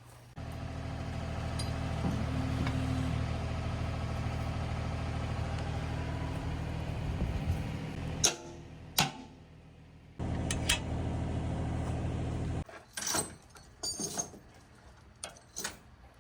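Takeuchi mini excavator engine running steadily, starting and stopping abruptly twice. After it stops, a few sharp knocks and clanks.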